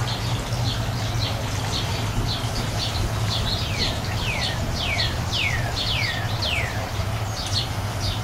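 Songbirds calling: a steady run of short high chirps, two or three a second, joined in the middle by a series of quick notes that slide downward in pitch. A steady low hum runs underneath.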